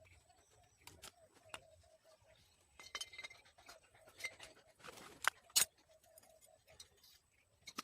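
Small metal tools and engine parts clinking and tapping as they are handled, in irregular light clicks with two sharper knocks a little past halfway.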